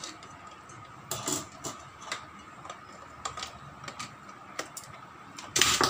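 Scattered plastic clicks and knocks from an electric hand mixer being handled as its beaters are fitted, with a louder clatter near the end. A faint steady high tone hums underneath.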